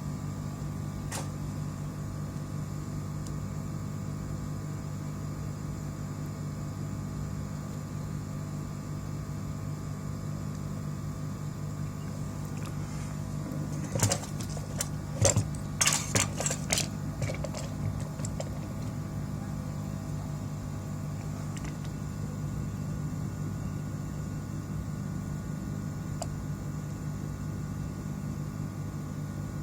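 Steady low electrical hum, with a cluster of sharp clicks and knocks about 14 to 17 seconds in.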